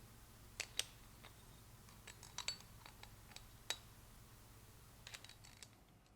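Faint, sharp metallic clicks and taps, scattered irregularly and sometimes in quick clusters, as small bicycle-hub parts and bearing tools are handled and set down.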